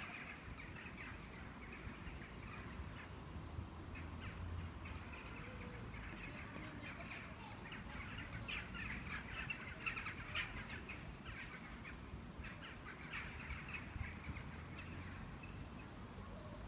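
Faint outdoor ambience: a steady low rumble of distant traffic, with short bird calls coming and going, most of them in the middle.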